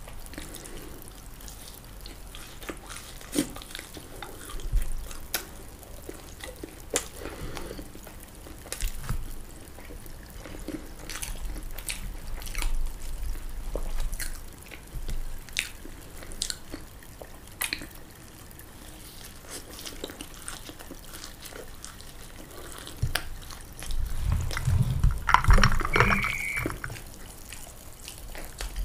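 Close-miked ASMR eating sounds: wet chewing, smacking and sticky mouth clicks of a person eating fried food. A louder, denser stretch comes near the end.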